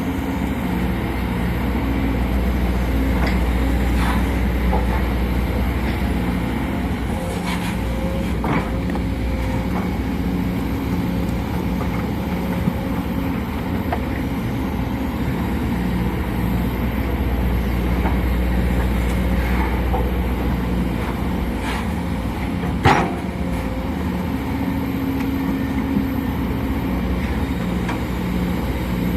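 Sumitomo SH210 excavator's diesel engine running steadily while it works, with a few short sharp knocks over the top, the loudest about two-thirds of the way through.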